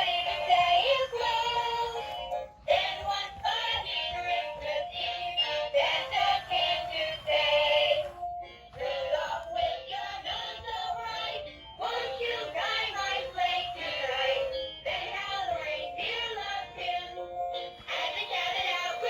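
A battery-powered dancing Christmas toy playing a song with electronic-sounding singing through its small, tinny speaker, with almost no bass.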